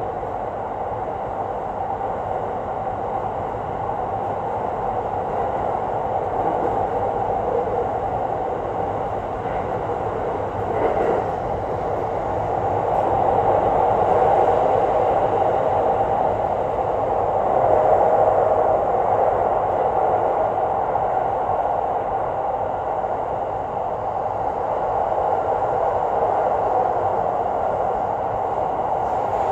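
Electric train running at speed through a long rail tunnel, heard from inside the front of the train: a steady, loud running noise of wheels on rail, swelling a little twice in the middle.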